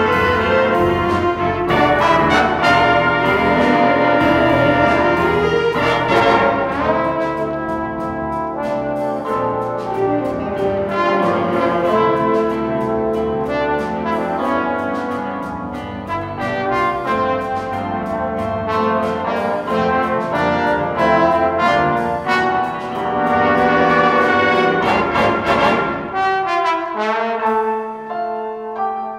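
Jazz big band playing, with a trombone out front over saxophones, trumpets, piano, drums and bass. About 26 seconds in the band thins out to a few quiet held notes and piano.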